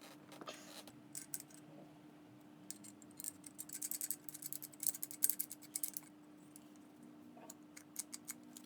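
Light metallic clicks and rattles from a restored Stillson pipe wrench being handled, dense in the middle and sparse near the start and end, over a faint steady hum.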